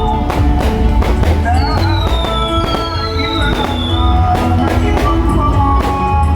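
Fireworks going off in rapid bangs, with a few high whistles that fall slowly in pitch, over loud music with sustained notes.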